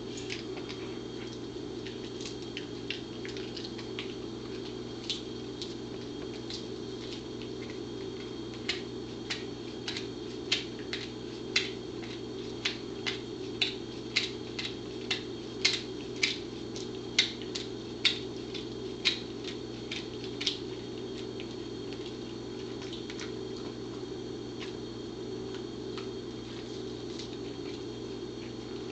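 Pembroke Welsh Corgi chewing a beef Achilles tendon chew: a run of sharp crunching clicks, about one or two a second, from about eight to twenty seconds in, over a steady low hum.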